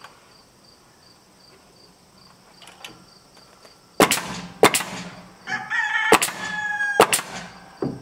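Pneumatic nail gun firing five nails into rough-sawn board siding, starting about halfway in, with two shots close together near the end. A rooster crows between the shots, over a steady chirping of crickets.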